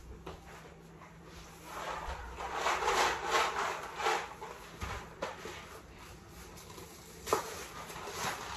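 A cardboard box of boxed mac and cheese being handled: rustling and shaking for a couple of seconds, then a single sharp knock near the end as it meets the counter.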